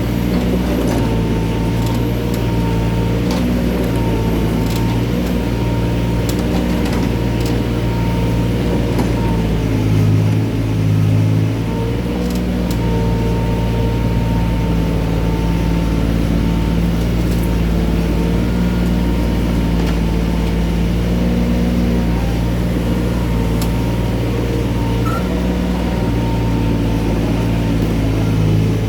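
Mini excavator engine running steadily, briefly louder about ten seconds in, with faint scattered clicks.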